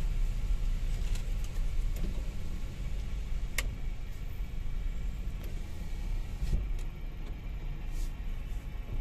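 Car driving slowly, heard from inside the cabin as a steady low rumble of engine and tyres. There is a sharp click about three and a half seconds in.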